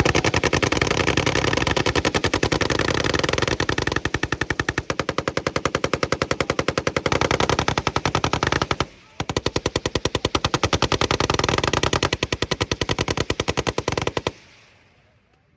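M240B 7.62 mm belt-fed machine gun firing long, rapid automatic bursts. The fire breaks off briefly about nine seconds in, resumes, and stops about a second before the end.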